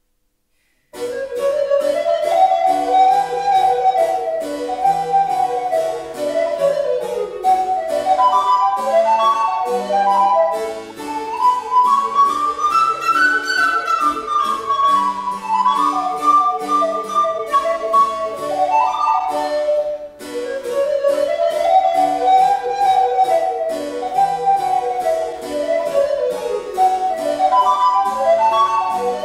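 Recorder playing a quick melody over harpsichord continuo in a Baroque sonata. The music begins about a second in, stops briefly about two-thirds of the way through, then takes up the opening phrase again.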